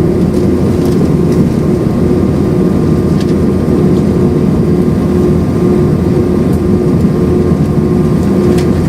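Steady jet engine noise inside the cabin of an Airbus A319: a loud, even rumble with a steady hum from the twin IAE V2500 engines, and a few faint clicks.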